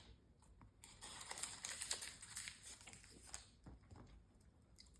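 Near silence with faint rustling and a few light taps and clicks in a small room, busiest in the first half.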